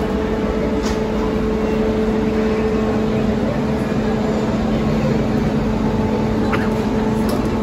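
Steady mechanical drone at an airliner's boarding door: a constant hum with a higher tone above it, over an even rushing noise, and a few faint clicks.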